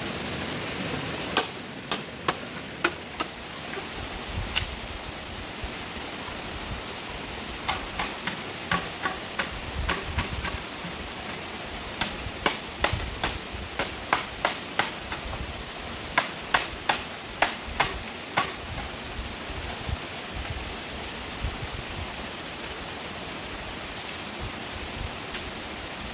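Series of sharp knocks from a hand tool striking bamboo, about two to three strokes a second, in several bursts with pauses between, over a steady background hiss.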